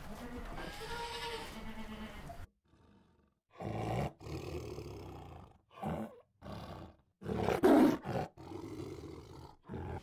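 Goats bleating, then after a brief pause a tiger roaring in a series of separate calls, the loudest about eight seconds in.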